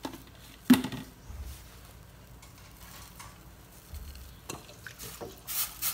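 A sharp metallic clank on a stainless steel pot of water about a second in, then a few light knocks and a short swish near the end as wooden chopsticks go into the pot.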